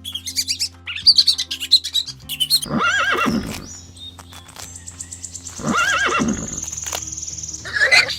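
Rapid bird chirping, then two long, loud, wavering animal calls and a shorter one near the end, over steady background music.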